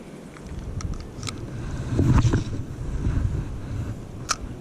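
Wind buffeting the microphone as a low, uneven rumble that swells about two seconds in, with a few light clicks and a sharp tick near the end.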